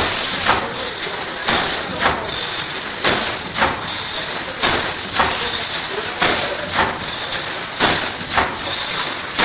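Automatic wire mesh welding machine running, welding cross wires onto the mesh in 100 mm steps: a rhythmic clanking about twice a second over a steady high hiss.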